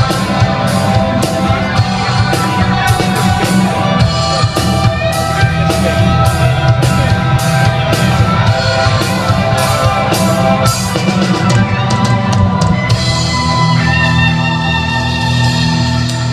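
Live rock band playing drums and electric guitar at a sound check, with a steady drumbeat. About three-quarters of the way through the drum hits thin out, leaving mostly held notes.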